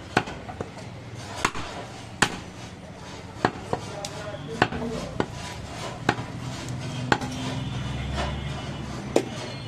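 A butcher's cleaver chopping raw goat meat on a wooden log chopping block: about ten sharp chops at irregular intervals, roughly one a second.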